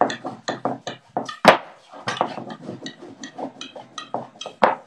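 Rolling pin knocking and rolling on a wooden pastry board as piadina dough is rolled out thin: a quick, irregular series of knocks, several a second.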